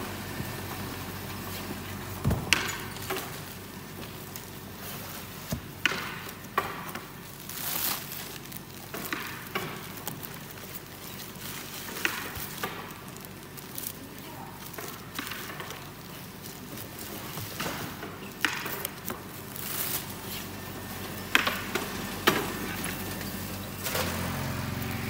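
Packing noise: plastic film rustling and crinkling, and bamboo pizza peels knocking and clattering as they are handled, in irregular short bursts over a steady low hum.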